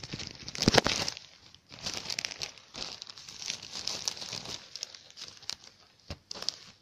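Clear plastic sticker bags crinkling and rustling as they are handled, loudest about a second in.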